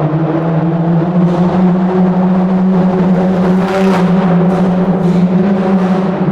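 Car engine running at a steady cruising speed inside a tunnel, a deep drone whose pitch rises a little about a second in and then holds. Short hissy whooshes sound several times in the second half.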